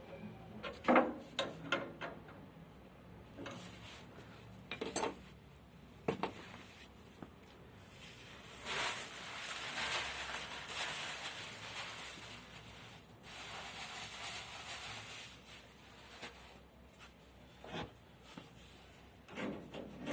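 Small metal parts and hand tools clinking and knocking during oil burner injector work, with a longer stretch of rubbing in the middle.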